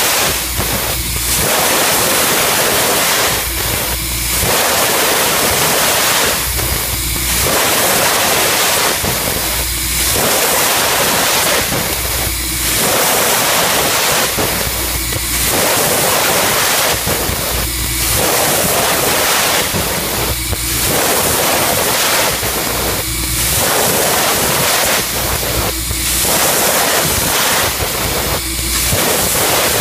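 Automated laser cutting machine cutting sheet steel: a loud, steady hiss of the cutting head and sparks that swells and dips in a regular cycle about every three seconds, with a low hum coming and going in step.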